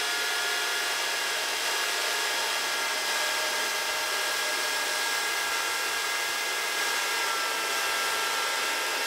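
Makita corded electric chainsaw running at a steady high whine while cutting through a 5x10 cm timber.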